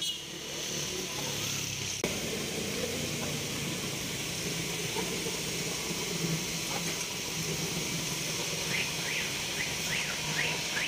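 Steady street traffic noise of vehicles running past. Near the end comes a quick run of short, high, rising chirps.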